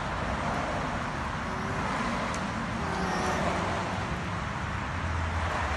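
Steady outdoor background noise: an even hiss over a low rumble, with no distinct events. The low rumble swells slightly near the end.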